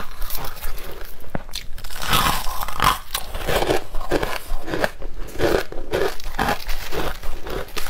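Crunching and chewing of mouthfuls of crushed ice, a rapid, irregular run of crunches, with fingers scooping into the bowl of ice.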